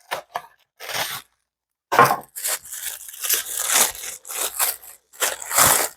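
Plastic and cardboard toy packaging being torn open and crinkled by hand, in irregular rustling bursts with a brief pause about a second in.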